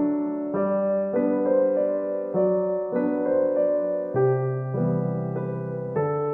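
Background music: soft piano or electric piano playing a slow melody over held chords.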